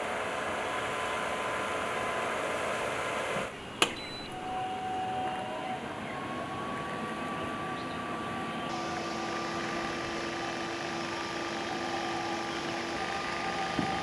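Small fan motor of a homemade cardboard mini air conditioner running steadily, a whir with a faint hum. A single sharp click sounds a little under four seconds in.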